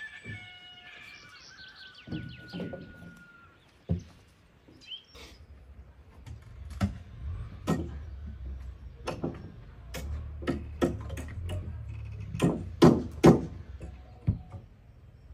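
A rooster's crow trails off over the first few seconds. Then comes a run of irregular hammer blows, the loudest in a quick cluster near the end.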